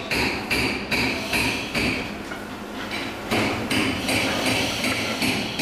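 A hammer repeatedly striking metal, each blow ringing briefly, about two and a half blows a second. There are two runs of strikes with a short pause a little after two seconds in.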